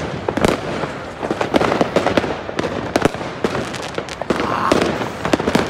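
Fireworks and firecrackers going off in quick, irregular succession: many sharp bangs and crackles of varying loudness.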